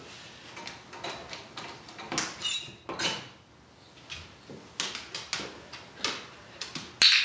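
Plastic dog crate's wire-grille door being swung shut and latched: a run of metallic clicks and rattles with a brief squeak, then steps moving away and a sharp clatter near the end.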